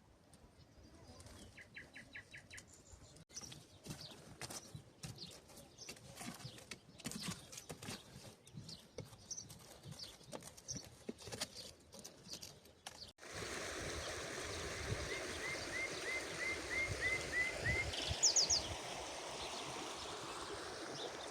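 Birds calling over outdoor ambience. A short trill comes about two seconds in, among scattered light knocks and clicks. About thirteen seconds in the background changes suddenly to a steady rushing noise, with a run of about nine repeated chirps and then a brief high trill.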